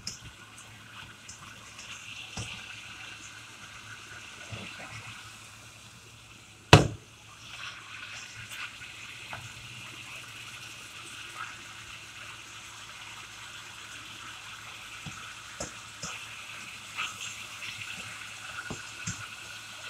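Chicken pieces sizzling in oil in a frying pan, with scrapes and taps of a slotted spatula as they are turned. A single loud knock comes about seven seconds in.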